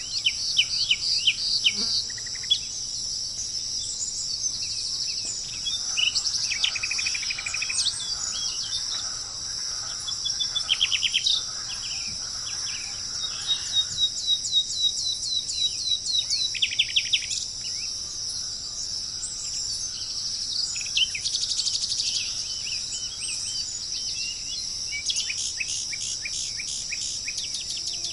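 Several songbirds chirping and singing quick trills over a steady, high-pitched chorus of insects. One bird gives a run of evenly spaced notes about halfway through, and rapid chirp series come again near the end.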